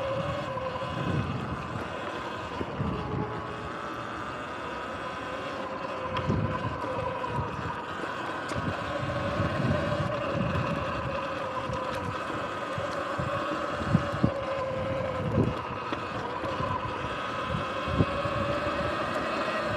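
Sur-Ron electric dirt bike riding along, its motor and drivetrain whining steadily with a pitch that drifts up and down with speed, over rumbling bumps from the ground. A few sharp knocks stand out, two close together about two-thirds of the way in and one more near the end.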